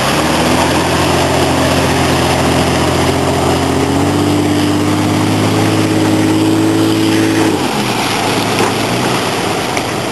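Ford Explorer's engine running at steady revs under load in deep water, the pitch stepping up slightly about four seconds in, then falling off sharply near the end.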